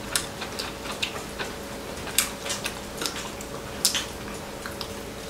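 Chopsticks and spoons clicking against bowls and side-dish plates during a meal: scattered light clicks, a few sharper ones about two and four seconds in.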